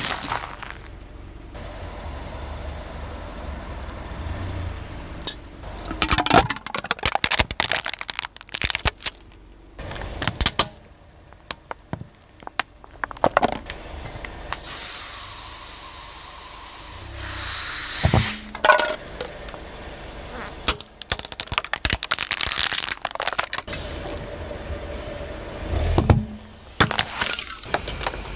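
Car tyre slowly rolling over objects on asphalt, with bursts of crackling crunches. About halfway through, an aerosol deodorant can bursts under the tyre and hisses loudly for about three seconds, ending in a sharp knock.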